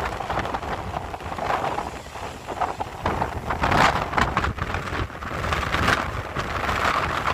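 Strong gusty wind buffeting the microphone, over the rush of rough sea breaking on rocks; the gusts surge about four seconds in and again near six seconds.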